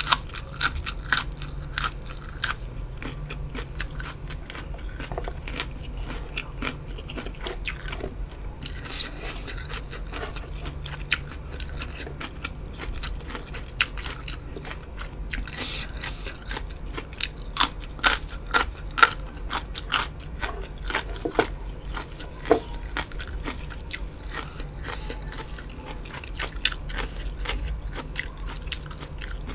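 Close-miked eating: crunchy bites and steady chewing, with many sharp irregular crunches and wet smacks. The crunches come thickest and loudest past the middle.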